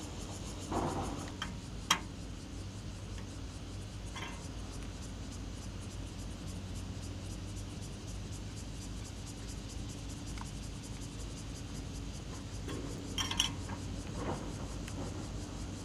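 A few light clicks and scrapes from gloved hands working on the open housing of a railway switch machine: a sharp click about two seconds in and a short cluster near the end, over a steady low hum.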